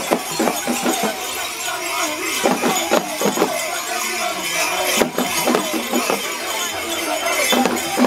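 Dense jingling and clinking of the bells on a masked New Year stag-dance troupe's costumes, with many irregular sharp knocks.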